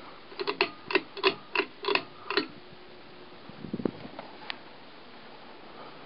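Ceiling fan running steadily, with a quick series of about seven sharp, slightly ringing clicks, about three a second, over the first two and a half seconds, then a few softer knocks near the middle.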